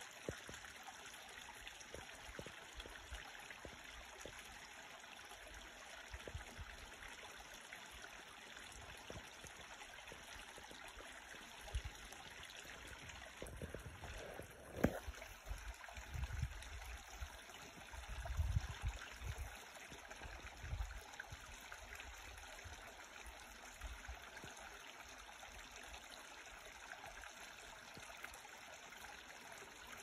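Small woodland creek trickling and splashing steadily over a low rock ledge into a shallow pool: an even hiss of running water. A few brief low rumbles come in the middle.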